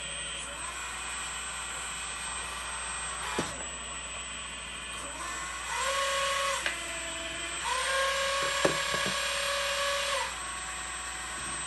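Small electric motors of a scratch-built metal RC hydraulic excavator whining: its hydraulic pump and worm-gear track motors. A louder motor whine sweeps up in pitch about six seconds in and again near eight seconds, holding for a second and for two seconds. A few sharp clicks come through, one near the middle and a couple near the end.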